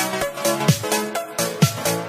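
Electronic background music with a steady beat and a deep note that drops in pitch about once a second.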